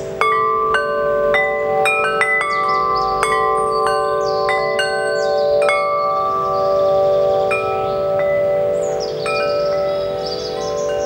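Large six-tube aluminium-alloy wind chime (44 mm tubes) ringing as its central striker knocks the tubes: a quick run of strikes in the first half, fewer after, each leaving a long-ringing tone so that several notes overlap.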